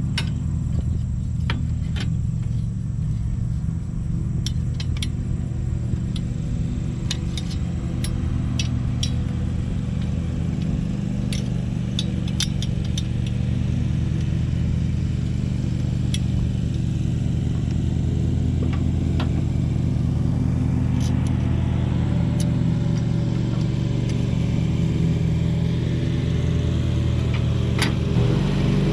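Lawn mower engine running steadily, with scattered light clicks and clinks over it.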